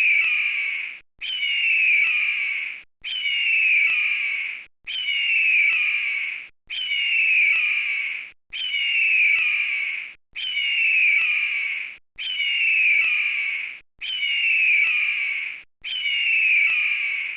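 Eagle call: a harsh, falling scream nearly two seconds long, repeated about every two seconds as the same call looped over and over.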